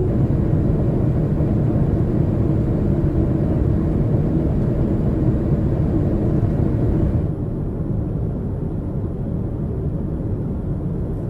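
Airliner cabin interior noise: a steady, dense low rumble with hiss above it. About seven seconds in it switches abruptly to a slightly quieter, duller rumble with less hiss.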